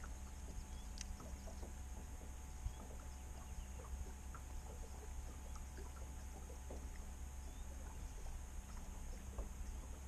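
Quiet ambience on a bass boat on still water: a steady low hum with a faint steady tone above it, and scattered faint ticks and taps.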